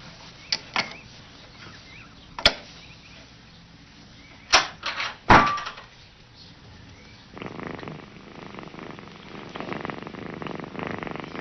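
Several sharp knocks and clicks from a cat working the latch of a puzzle box, then from about seven seconds in a cat purring steadily.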